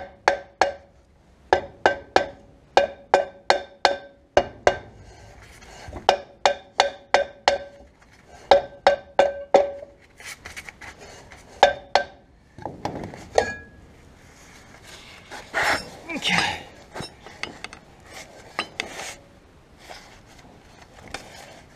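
Hammer tapping on a Land Rover Series 2a rear brake drum to free it from the hub: sharp metallic strikes that ring, in runs of several blows about three a second. Later the loosened drum scrapes and clanks as it is worked off.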